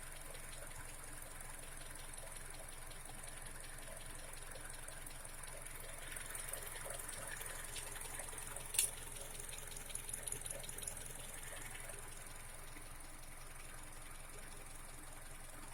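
Honda K24A inline-four engine idling with a fast, even ticking from the valvetrain, which the owner takes for valve knock; a single sharp click sounds about nine seconds in.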